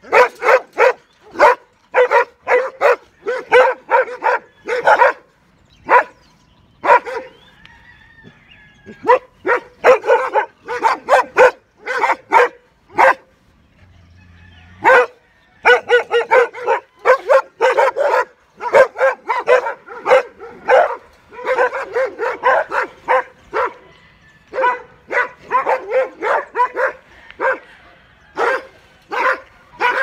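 Several large farm dogs barking hard and repeatedly at a gate, in rapid runs of sharp barks with a short lull about halfway through.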